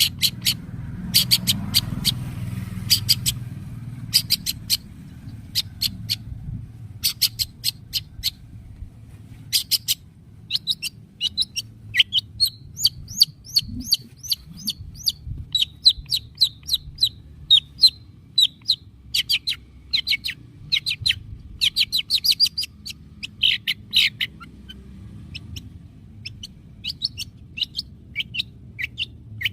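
Long-tailed shrike (cendet) calling in fast runs of short, sharp notes, several a second. The notes are sparse at first, densest in the middle stretch and thinning again near the end, over a faint low hum.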